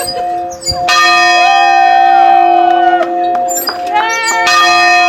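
Large bell rung by pulling its rope, struck about a second in and again near the end, its tone ringing on steadily between strokes. Shouting voices are heard over the ringing.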